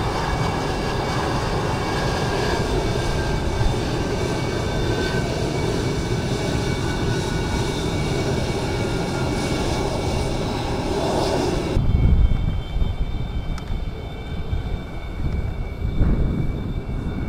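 F-22 Raptor fighters' jet engines running on the ground: a steady, dense rush with a high whine. About twelve seconds in the sound changes abruptly to a deeper, uneven rumble carrying a few steady high whine tones.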